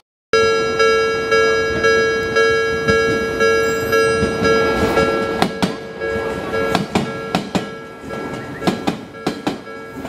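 Japanese level crossing warning bell ringing, about two strikes a second. From about halfway an Odakyu train passes over the crossing, its wheels clicking over the rail joints.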